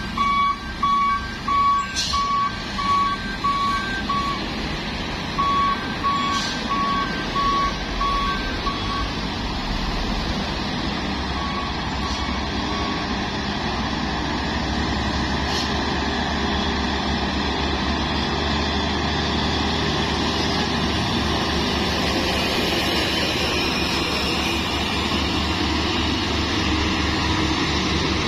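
Diesel engines of heavy Hino and Mitsubishi Fuso trucks running under load as they climb a steep grade. An electronic warning beeper sounds in short, even beeps, about two a second, for the first nine seconds or so and briefly again around twelve seconds. After that only the steady engine noise remains.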